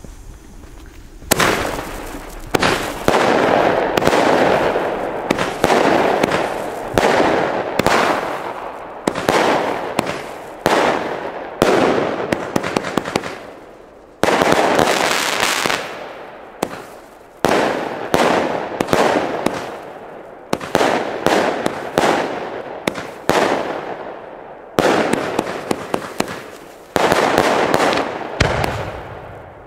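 Consumer fireworks battery (Black Ice cake) firing after its main fuse has burnt down. It launches a shot about every second, starting about a second in, and each shot is followed by a burst that dies away before the next.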